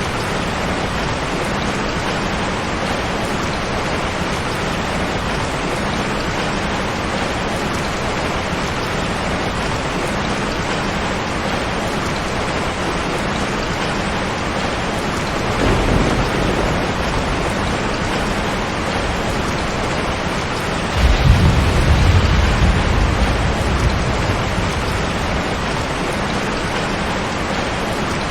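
Heavy rain drumming steadily on a tin roof. A short low roll of thunder comes a little past halfway, and a louder, longer thunder rumble starts suddenly about three-quarters of the way in and dies away over a few seconds.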